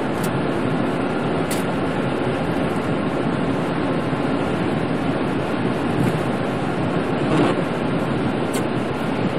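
Steady in-cabin drive noise of a Ford F-150 pickup at highway speed: tyres running on a wet, snowy road, with the engine and the cabin fan blowing. A few faint clicks come through.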